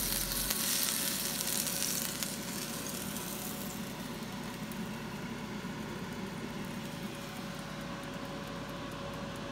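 Patties of grain-free bread batter sizzling as they fry in oil in a skillet. The sizzle is loudest for the first three or four seconds, then settles to a quieter steady hiss over a faint steady hum.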